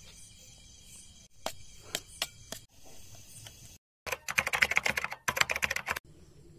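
Rapid keyboard typing sound effect: two quick bursts of dense keystrokes lasting about two seconds, laid under the date being typed out on screen. Before it come a few separate sharp clicks of a spoon on a steel plate.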